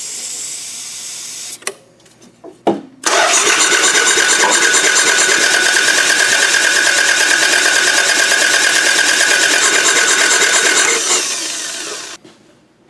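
A Toyota Camry engine being cranked by its starter without firing: a short crank, a few clicks, then a long crank of about eight seconds with a fast even pulse and a steady whine, fading out near the end. The engine only turns over and never catches because the timing belt has snapped.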